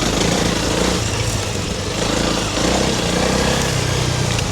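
Honda CRF300 Rally's single-cylinder four-stroke engine running as the bike is ridden along a trail, its revs going up and down several times.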